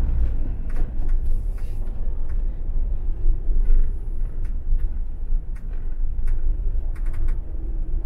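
Camper van rolling slowly over a gravel lane: a steady low engine and tyre rumble, with scattered irregular clicks and pops from the gravel under the tyres.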